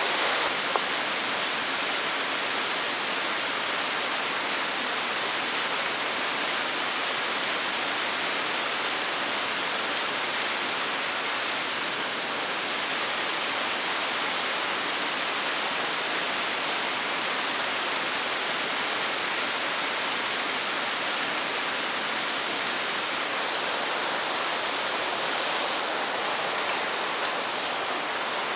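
Creek water rushing steadily, an even, unbroken wash of sound.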